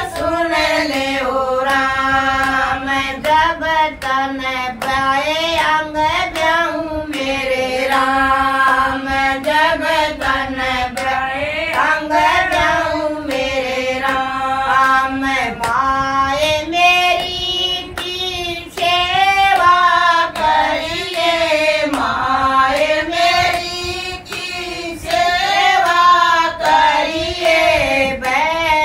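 A group of women singing a folk devotional bhajan to Tulsi Mata together, with hand claps keeping time through the song.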